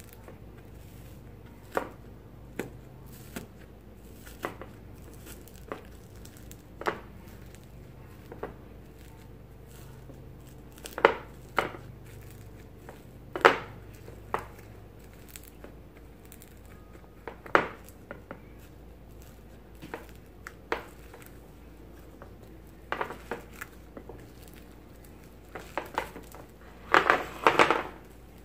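Dried, crunchy top crust of homemade iceberg slime (foaming hand soap slime) crackling and crunching as fingers poke into it and break it apart in a bowl. The crunches come as scattered short crackles and grow thicker and louder near the end.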